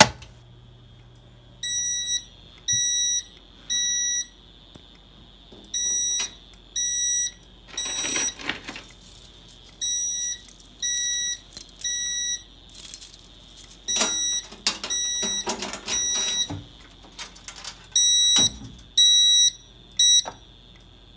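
Fire alarm horns sounding in the temporal-3 evacuation pattern: three short, high-pitched blasts, then a pause, repeated. A faint steady high tone runs underneath, and a few brief harsh noisy bursts come between the blasts.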